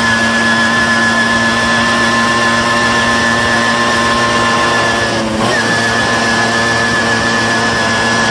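Tomos 14M two-stroke moped engine running under way at steady revs. About five seconds in, the engine note dips sharply for a moment and then picks back up to the same pitch.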